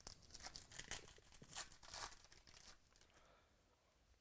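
A foil trading-card pack being torn open, a run of crinkling, crackling tears for about three seconds that then dies away.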